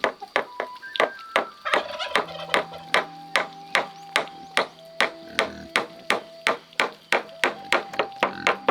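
Repeated sharp strikes, about three a second at an even pace, over background music with long held notes.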